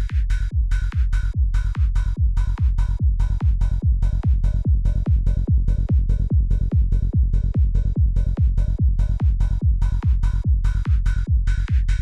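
Psytrance kick drum and rolling bassline playing in a fast, steady loop, each kick a short hit whose pitch drops quickly.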